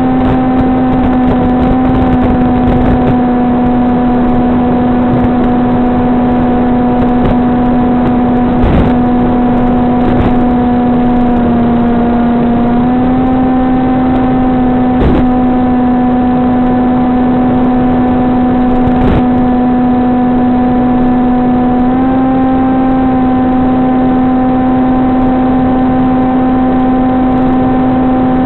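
A SunnySky 2212 2450 kV brushless motor turning an APC 6x5.5 propeller at steady cruise throttle, heard through the plane's onboard video-link audio as a loud, steady buzzing hum. The pitch sags slightly about 12 seconds in and steps up a little about 22 seconds in, with a few faint clicks.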